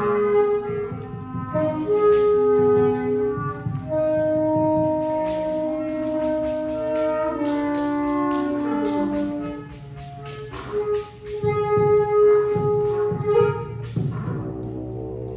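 Free-improvised ensemble of saxophones, other reeds and clarinet, holding overlapping long notes that clash against each other, over quick strokes on batá drums.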